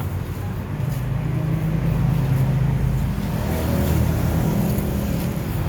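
A motor vehicle's engine running, a steady low rumble that swells for a few seconds in the middle and eases toward the end.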